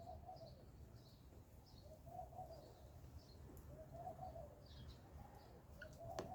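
Faint bird calls: a low cooing call repeating about every two seconds, with higher chirps in between. A single sharp tick near the end.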